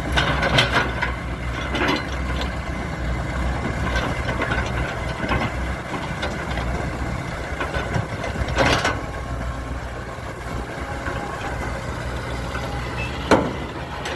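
Heavy machinery engine running steadily at a low idle-like speed, with a few sharp metallic clanks and knocks, the loudest about nine and thirteen seconds in.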